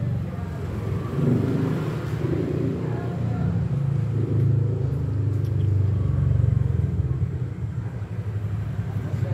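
Steady low rumble of a running motor, with faint voices in the background.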